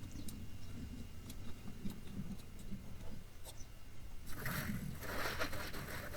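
Scattered faint clicks, then about four seconds in a burst of scraping and rustling against tree bark, of the kind a climber's spurs and flip line make while ascending the trunk.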